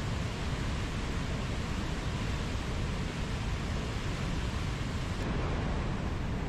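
Mountain stream rushing steadily, a continuous full rush of flowing water with no breaks.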